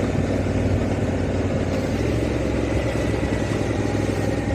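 Honda Africa Twin motorcycle's parallel-twin engine running steadily, a low even hum with a constant rush of noise over it.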